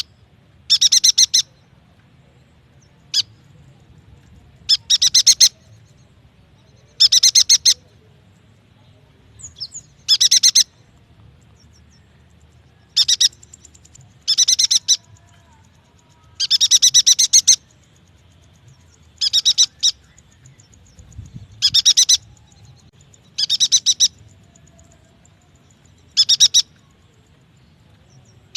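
A yuhina singing: short, high-pitched, rapid chattering phrases, each under a second, repeated every two to three seconds. It is a recording meant as a lure to set captive yuhinas singing.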